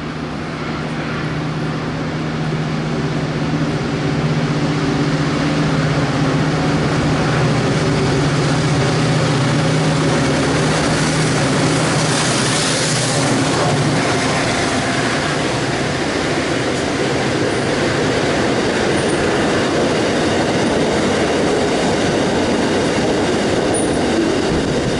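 Diesel freight locomotive approaching with its engine droning, the sound building over the first few seconds and swelling into a rush as it passes about halfway through. Loaded gravel hopper wagons follow, rolling past with wheel clatter and a faint high wheel squeal.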